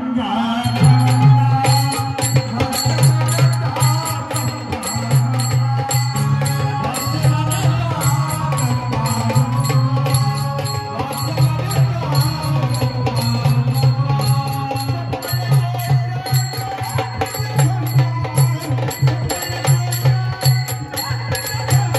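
Live Marathi folk-theatre music: drums and small cymbals keep a quick, even beat over a sustained low tone, with a melody line above.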